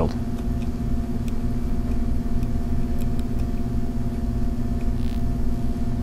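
Steady low background hum from room machinery, such as ventilation, with a constant tone over a pulsing rumble. There are a couple of faint light ticks.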